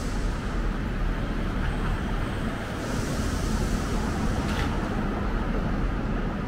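Road traffic on a city street: a steady low rumble of passing vehicles, with a brighter hiss swelling about three seconds in and fading out shortly before five seconds.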